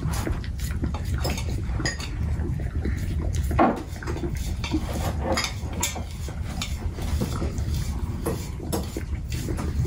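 Basset hound licking out a stainless steel pot, its tongue and muzzle clinking and knocking against the metal in irregular taps, with one louder knock about halfway through.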